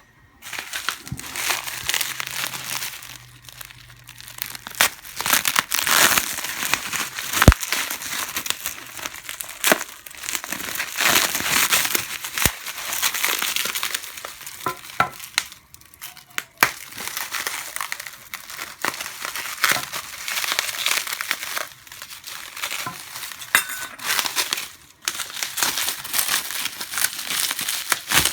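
Protective packaging wrap crinkling and crackling in uneven spurts as it is pulled off and unwrapped from a bow riser, with sharp clicks and crackles throughout.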